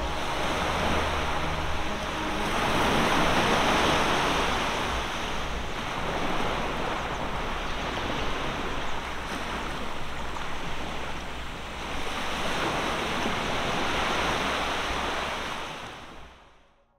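Small waves washing onto a sandy beach, a steady rush of surf that swells and eases every few seconds, with some wind, fading out at the end.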